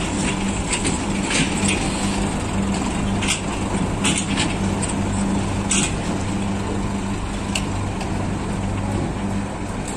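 Diesel farm tractor engine running steadily at a low, even pitch as it slowly pulls a trailer loaded with sugarcane. A few brief sharp sounds come through over the engine.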